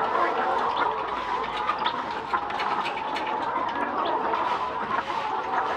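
Many chickens clucking and calling together in a steady chorus.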